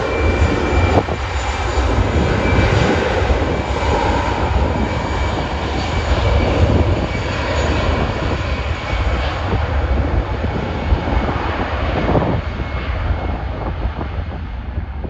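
Jet engines of an easyJet airliner on departure, a loud steady roar with a deep rumble and a faint whine, its higher tones fading near the end.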